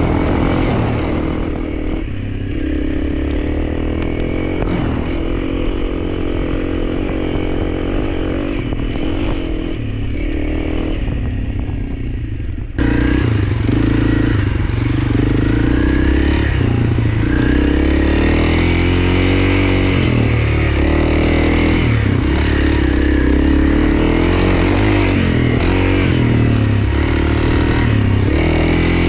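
Honda CRF300L's single-cylinder four-stroke engine running under way off-road, its revs rising and falling as the rider works the throttle. Roughly halfway through, the sound jumps suddenly louder, with more hiss on top.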